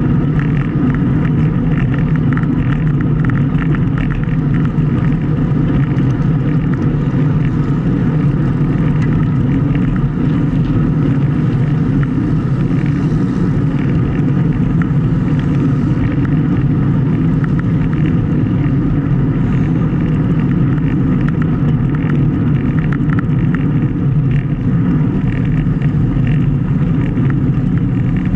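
Steady wind noise buffeting the microphone of a Garmin VIRB action camera on a road bicycle riding at speed.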